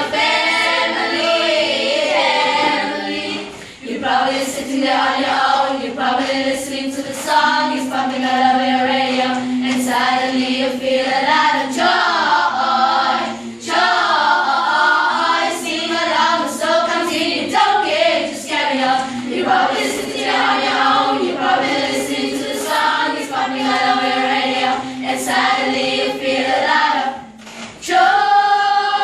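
Children's school choir singing a cappella, several voices together, with short breaks about four seconds in, near the middle and just before the end.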